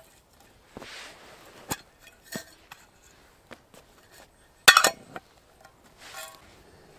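Camp cookware being handled: a few sharp metallic clinks and knocks, the loudest cluster about five seconds in, between soft rustling.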